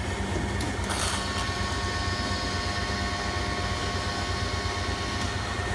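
Hardinge DSM-59 lathe's machinery running with a steady hum. About a second in, a click and a short rush of noise as the coolant pump is switched on, followed by a faint steady whine that stops near the end.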